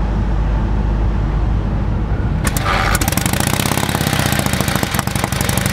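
A 1935 Harley-Davidson VLD's 1200 cc flathead V-twin, just kick-started. It runs with a low rumble, then about two and a half seconds in it picks up into a rapid, even firing beat.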